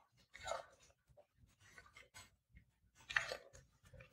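Faint rustling and a few soft clicks and knocks in a quiet courtroom, with a brief louder cluster of clicks a little after three seconds in.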